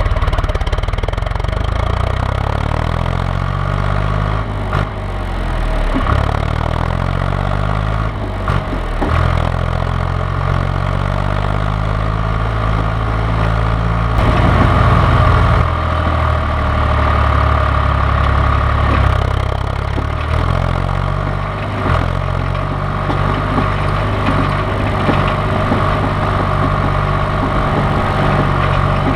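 John Deere 1130 tractor's three-cylinder diesel engine running, its speed dropping and picking up a few times in the first half, then holding steadier.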